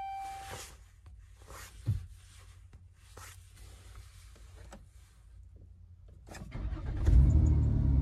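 2012 Dodge Grand Caravan's 3.6-litre V6 being started: a dash chime fades out at the start, then a few small clicks, and about six seconds in a click and a brief crank as the engine catches and settles into a steady idle. It fires up smoothly now that the wireless ignition module has been cleaned, curing the intermittent no-start.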